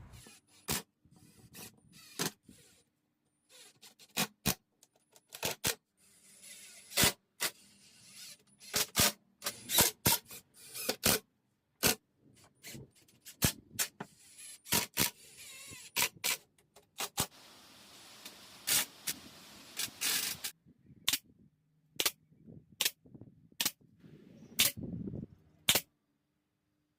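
Woodworking on a pine cabinet: a long run of sharp, irregular knocks and clicks, dozens in all, with several stretches of hiss between them.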